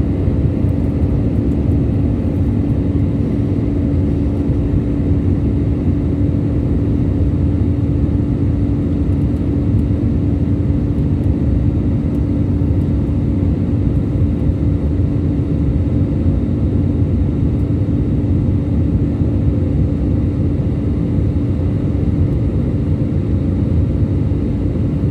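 Airbus A320-200 cabin noise in the climb after takeoff: the engines and airflow make a steady low drone, with a constant hum running through it.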